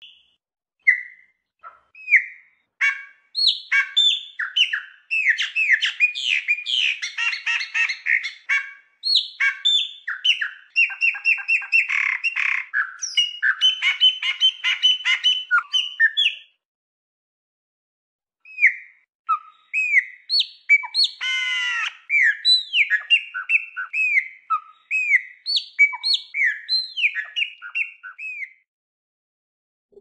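Chopi blackbird (pássaro-preto) singing: two long runs of quick, varied whistled and chirping notes with a pause of about two seconds between them, and a brief harsh rasp early in the second run.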